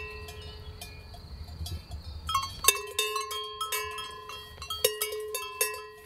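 Several cowbells clanking irregularly, each strike ringing on. The clanking grows busier about two and a half seconds in.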